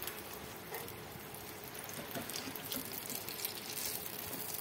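Gram-flour-battered bell pepper fritters (pakoras) deep-frying in hot oil: a steady sizzle with many small crackling pops.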